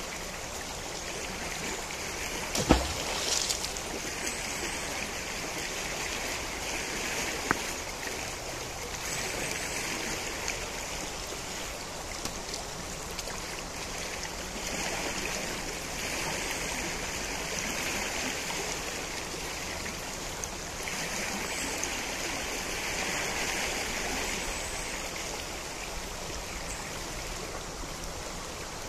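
The Najerilla river flowing in a steady rush of water, with a sharp knock about three seconds in and a fainter click a few seconds later.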